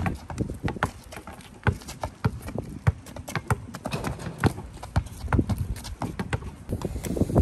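Several basketballs being dribbled on asphalt: sharp bounces at about three a second, in an uneven, overlapping rhythm.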